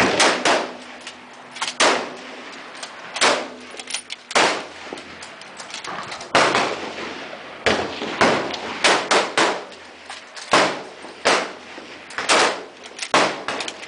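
Rifle fire from several shooters along a firing line: sharp shots at irregular intervals, each trailing off briefly.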